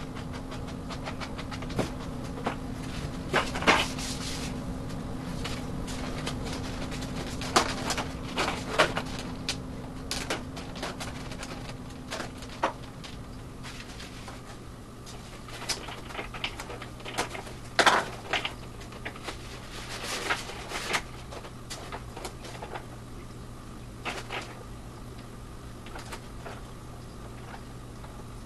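Scattered clicks, taps and knocks of small plastic and foam model-aircraft parts being handled and fitted at a table, over a steady low hum that drops lower a little before halfway.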